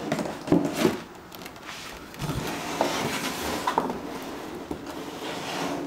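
A box being opened and its packaging handled: a couple of knocks about half a second in, then a few seconds of scraping and rustling.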